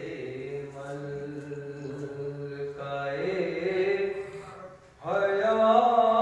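A man's unaccompanied voice chanting a devotional recitation through a microphone, holding long drawn-out notes. About five seconds in there is a brief pause, then a louder phrase begins.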